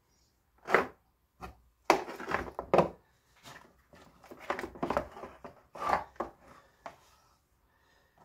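Irregular knocks, clicks and rattling as a small box of assorted O-rings is handled and searched through, in short clusters with gaps between them.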